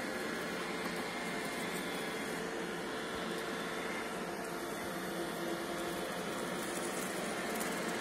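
Several iRobot Roomba e5 robot vacuums running on carpet: a steady whir of their suction fans and brushes, with a faint steady hum tone underneath.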